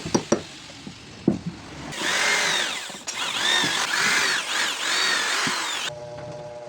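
A few sharp knocks on wood, then a handheld power tool runs loud for about four seconds, its pitch rising and falling as it bites into the wood. Near the end it gives way to a quieter, steady hum.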